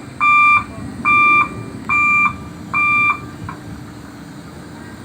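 Warning beeper on a Kato 25-ton rough terrain crane sounding four loud beeps of one steady pitch, about one a second, over a low engine rumble. The beeping stops a little past three seconds in, leaving the engine running.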